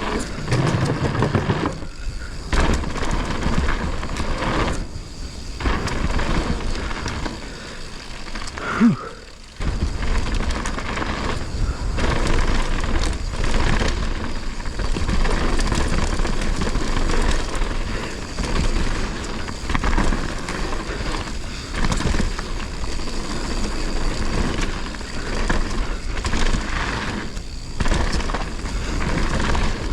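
Mountain bike riding fast down a dirt trail: a steady rush of tyre, drivetrain and wind noise, dipping briefly a few times and coming back hard, with a sudden jump in the low rumble about ten seconds in.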